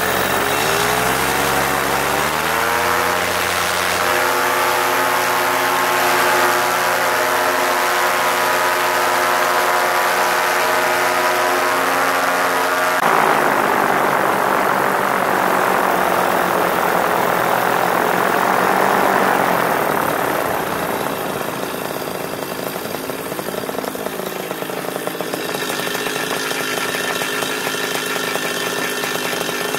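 Paramotor engine and propeller revving up from low throttle over the first few seconds, then running steadily at high power. About halfway through, the sound changes to a broad rushing noise over the engine as the paramotor is airborne. Later the throttle eases, there is a brief rev-up and drop, and the engine revs up again near the end.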